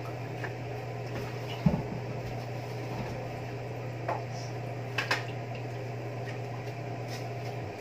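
Kitchen clatter: a sharp knock and a few light clinks of pots and utensils over a steady low hum, which cuts off just before the end.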